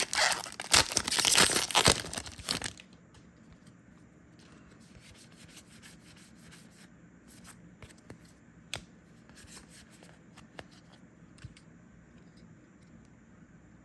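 A foil booster pack wrapper torn open and crinkled for about three seconds, then faint rustling and light taps of cards being handled.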